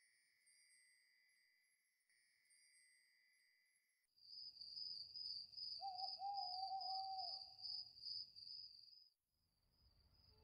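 A single wavering owl hoot, about two seconds long, around the middle, over a high steady tone; both stop about a second before the end.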